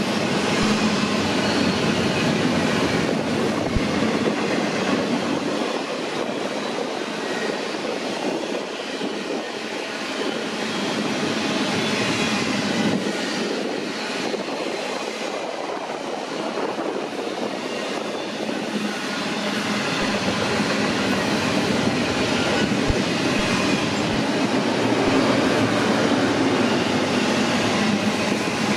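BNSF double-stack container freight train rolling past at close range: a steady noise of steel wheels on rail with a few sharp knocks. It eases slightly in the middle.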